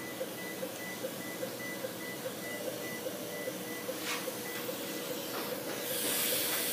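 A patient monitor beeps in a steady rhythm, about two and a half beeps a second, under a constant equipment hum. This is the pulse-oximeter tone keeping time with a small child's fast heartbeat. Near the end a hiss swells up.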